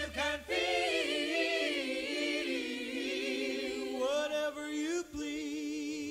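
Unaccompanied vocal harmony: voices singing long held notes with vibrato, without words, after the bass and drums cut out at the start.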